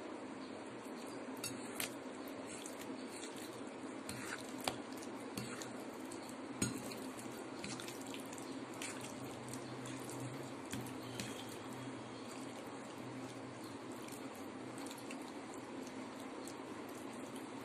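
Wet squelching of raw chicken breast being mixed by hand in oil in a stainless steel bowl, with a few sharp clicks against the bowl, over a steady low hum.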